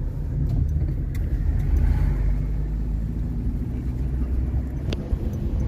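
Car on the move: a steady low rumble of engine and road noise, with a sharp click about five seconds in.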